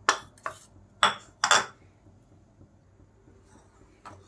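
Steel spoon clinking against a ceramic bowl: four sharp taps in the first couple of seconds, then a single light click near the end.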